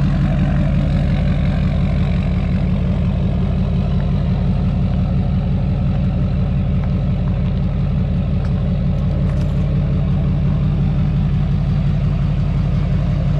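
Straight-piped 2006 LBZ Duramax 6.6-litre V8 turbodiesel idling steadily, with an even low rumble.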